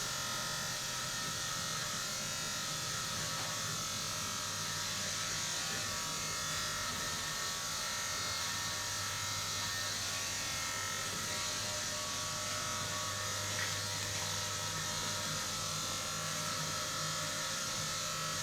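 Small handheld electric motor buzzing steadily and evenly, without a break.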